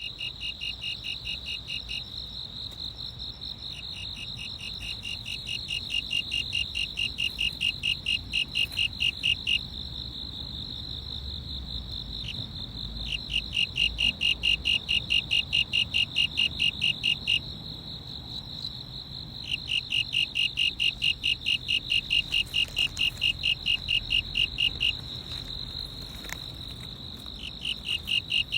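Insects chirping: one keeps up an unbroken high trill while another sings lower, evenly pulsed chirps at about five a second in bouts of several seconds with short pauses between.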